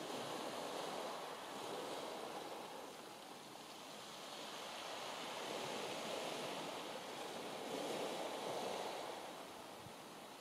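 Sea waves washing onto the beach, swelling and easing in slow surges a few seconds apart, with wind blowing.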